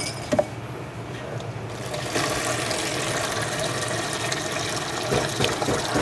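Water being poured into a paella pan of chicken, seafood and rice, a steady rush that starts about two seconds in. It tops up cooking liquid that has nearly cooked off, so the rice can steam through.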